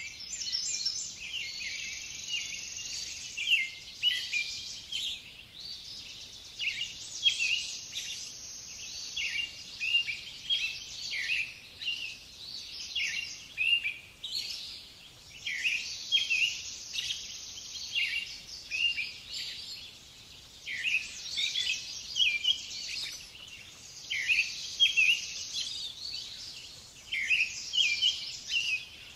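Small songbirds chirping and singing throughout, in quick repeated phrases of short, high, mostly falling notes.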